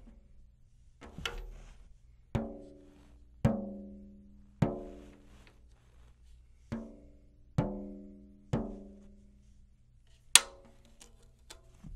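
Fingertip taps on a newly fitted clear Evans head on a 10-inch tom, about one a second, each giving a short pitched ring that fades quickly as the head is tap-tuned. Near the end a single sharp click, the loudest sound, then a few light clicks.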